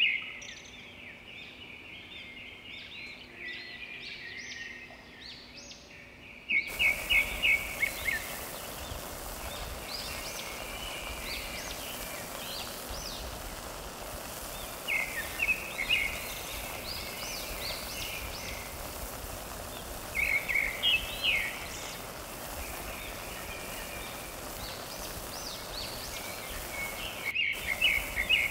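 Birds chirping and singing in short flurries every few seconds over a steady background hiss; the hiss gets suddenly louder about seven seconds in.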